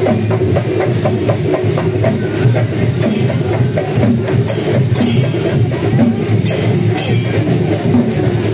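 Traditional Kerala temple percussion ensemble playing loudly: drums beaten in a fast, even rhythm with cymbals ringing steadily above.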